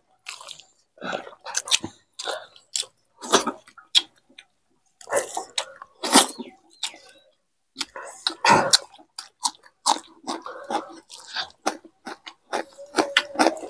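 Several people chewing and smacking their lips while eating rice and egg curry with their hands, in an irregular string of short wet clicks and smacks.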